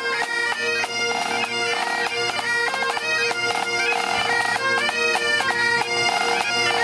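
Intro theme music: a melody played over steady, held drone notes.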